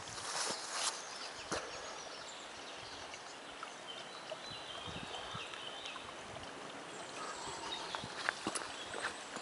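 Outdoor woodland ambience: a steady rush of flowing water with faint bird calls, and a few scattered knocks of footsteps on the path.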